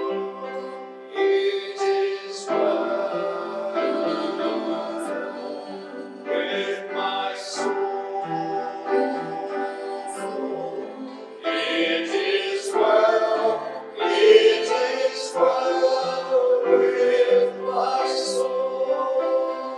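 Worship song: voices singing with instrumental accompaniment.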